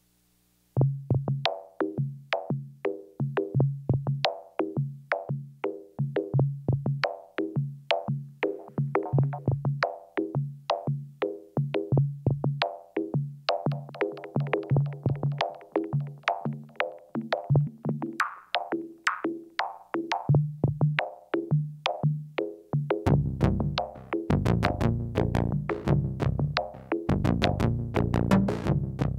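Electronic music from a live synthesizer and drum machine set, starting about a second in. A stream of short, repeating synth notes runs over a pulsing bass pattern, and a heavier bass and drum layer comes in near the end.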